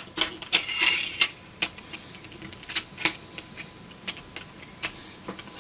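Irregular small clicks and taps from hands and tools handling the SJ1000 action camera's small plastic and metal parts during reassembly, with a quick flurry of clicks about a second in.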